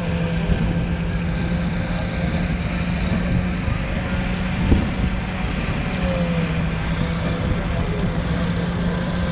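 An engine running steadily with an even hum, and a single sharp knock about halfway through.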